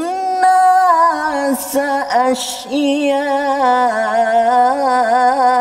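A man reciting the Quran in Arabic in a melodic, chanted style, drawing out long held notes whose pitch wavers and bends, with a brief break near the middle.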